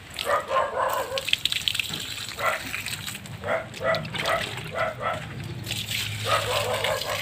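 A dog barking repeatedly, short barks coming about twice a second through the middle stretch.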